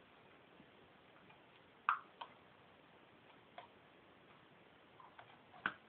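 A few light taps and clicks of a plastic baby bottle and its cap being handled, scattered one at a time, the loudest about two seconds in.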